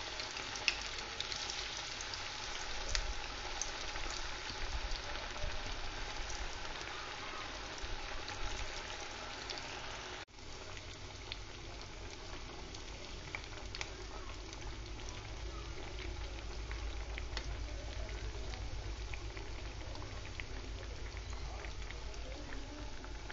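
Methi and maize-flour tikkis deep-frying in hot oil on a low flame: a steady bubbling sizzle with scattered crackles. It breaks off for an instant about ten seconds in.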